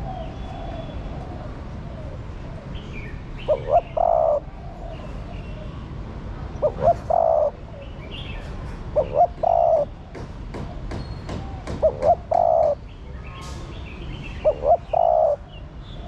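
Spotted dove cooing: five phrases about every two and a half to three seconds, each two short notes followed by a longer held note; the call of a female dove, used to stir up male doves. Short high chirps of small birds come in between the phrases.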